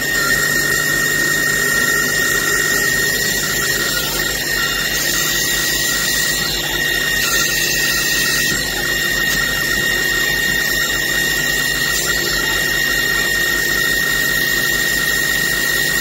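CNC lathe spindle running at speed with a steady high whine while a MultiTurn tool cuts into the end of a spinning metal bar, over the constant noise of cutting.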